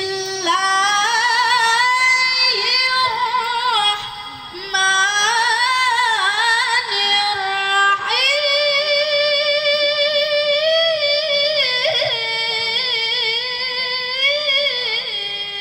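Solo Quran recitation (tilawah), chanted melodically in a high voice with long held, ornamented notes, in three phrases with short breaths about 4 and 8 seconds in.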